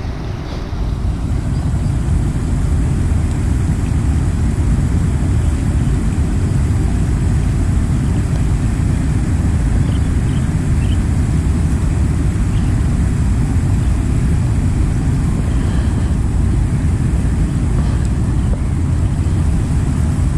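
Strong wind on the action camera's microphone: a steady, loud, low rumble with no break.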